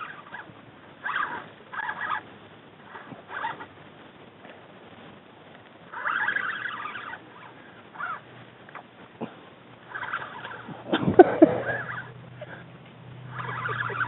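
Sounds of a snook being fought on rod and reel: short rasping bursts come and go, from the reel paying out or taking in line and the fish thrashing at the surface. About eleven seconds in there is a louder brief sound with a wavering pitch, followed by a low steady hum.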